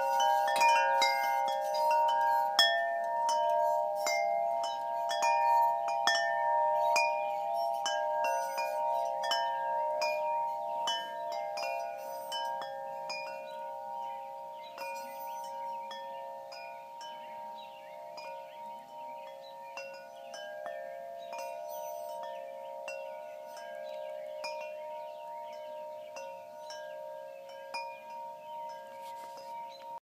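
Wind chimes ringing, struck again and again so that several tones overlap and sustain. The chiming is fuller and louder in the first half and thins out and softens later on.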